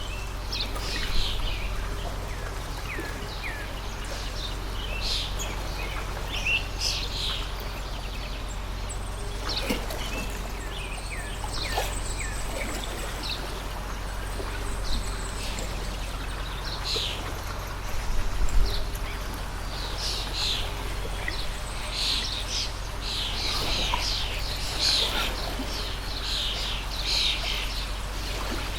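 Several small birds chirping and calling over and over, busier toward the end, over the steady low rush of a flowing stream.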